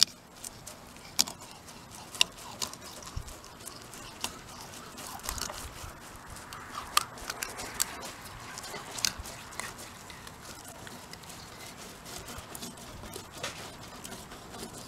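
Knife cutting along the backbone of a scaled bass, crunching through skin, flesh and rib bones in short, irregular crackles and clicks.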